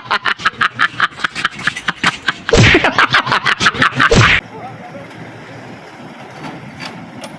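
Diesel jeepney engine under a smoke-emission test, pulsing rapidly and evenly, about five or six beats a second. The pulsing gets louder about two and a half seconds in, then cuts off abruptly, leaving a quieter steady background.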